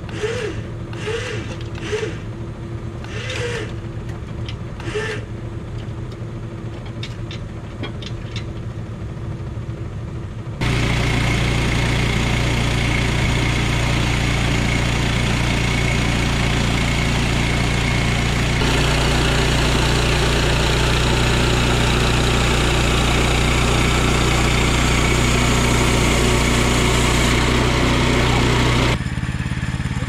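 Portable bandsaw sawmill's gas engine running quietly, then throttling up sharply about a third of the way in to drive the band blade through a log. It runs steadily under load and drops off abruptly just before the end.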